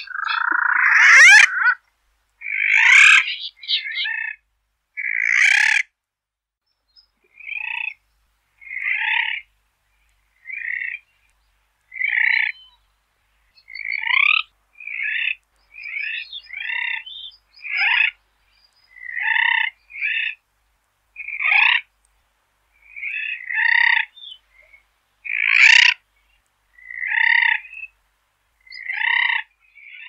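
Grey noddy (grey ternlet, Anous albivitta) calling: a longer call with a rising sweep opens, followed by a long series of short calls, one every second or two.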